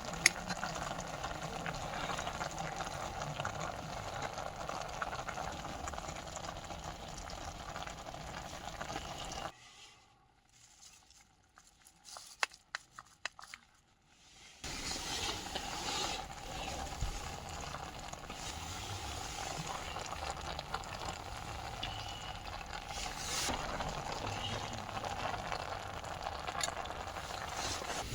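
Steady hiss of a camp stove with a pot of water bubbling on it. About a third of the way in, it drops to near silence for about five seconds, broken only by a few small clicks, then comes back unchanged.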